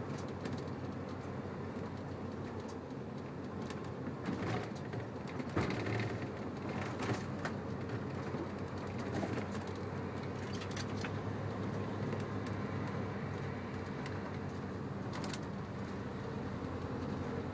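An RV's engine and road noise as it drives, a steady hum with scattered rattles and clinks, the loudest clatter about five and a half seconds in.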